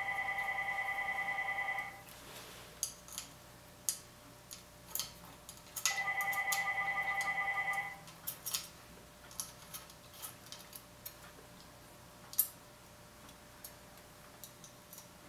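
A telephone rings twice: two trilling electronic rings about two seconds long with about four seconds between them. Light metallic clicks and taps from handling the disc-brake rotor and axle washers on the hub come between and after the rings.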